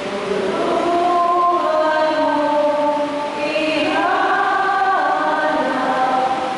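Church choir singing a slow Mass entrance hymn in long held notes, several voices together.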